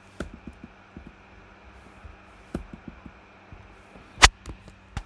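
Scattered clicks of computer keys being pressed, a few light taps and then a sharper, louder click about four seconds in, over a low steady electrical hum.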